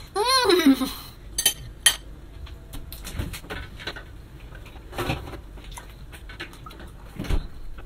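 A short hummed vocal sound that rises and falls in pitch near the start, then scattered clinks and knocks of chopsticks, a bowl and other tableware on a table, with a dull thud near the end.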